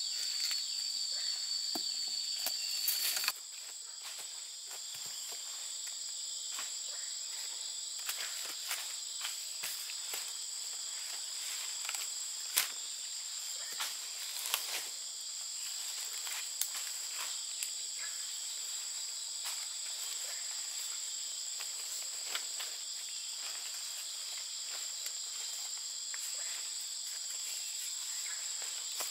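Steady high-pitched chorus of insects such as crickets or cicadas, one of its tones cutting off about three seconds in, with scattered light clicks and knocks throughout.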